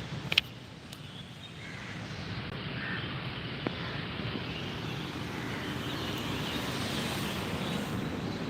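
Steady outdoor background noise, with a sharp click about half a second in and a fainter tick near the middle.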